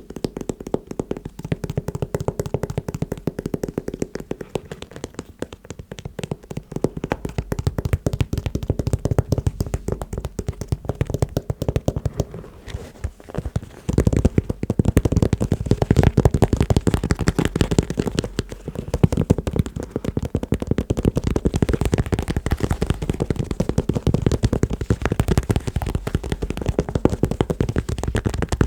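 Fast, dense tapping on shoes, many taps a second in a continuous flurry, thinning briefly about halfway through and then coming back louder.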